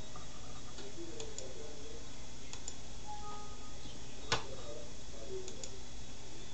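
Steady low background hum with scattered light ticks and clicks, one sharper click about four seconds in.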